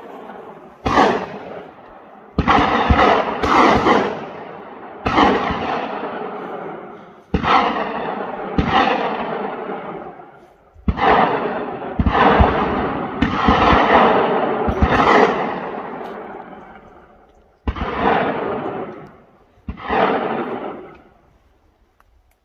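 Gunshots from hunting guns, about a dozen fired irregularly over some twenty seconds, several coming close together. Each crack is followed by a long echo that takes a second or more to fade.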